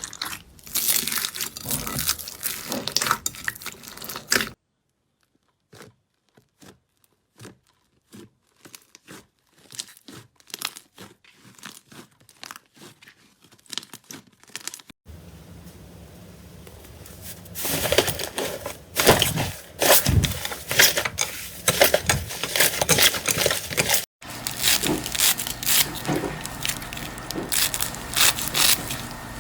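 Slime being squeezed and pressed by hand, giving rapid runs of small crackling pops and squishes, in several short clips. From about 4 to 15 seconds in, the clicks are sparse and quieter.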